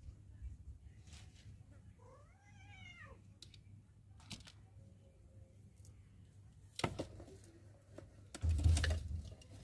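A single meow-like animal call, rising then falling in pitch and lasting about a second, about two seconds in. Near the end comes a louder rustling burst with a low rumble, with a sharper knock shortly before it.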